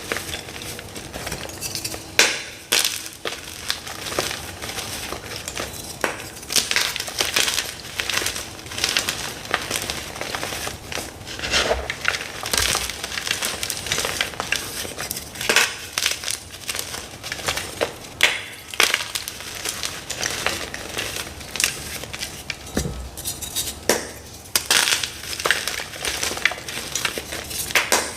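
Hard, dyed gym chalk blocks crunching and crumbling under pressure, an uneven run of sharp, crackly crunches.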